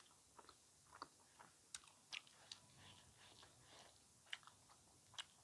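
Faint close-up chewing of food, a scattered series of small crisp crunches and mouth clicks at irregular intervals.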